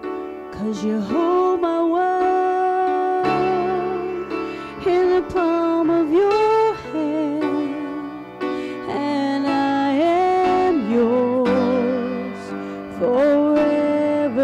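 A gospel song: voices singing long held notes with vibrato in harmony, over instrumental accompaniment.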